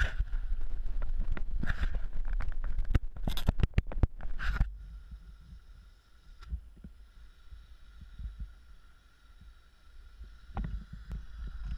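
Low buffeting and handling noise on a body-worn camera's microphone, broken in the first half by a few short noisy bursts and sharp clicks, then quieter with a faint steady tone before the buffeting returns near the end.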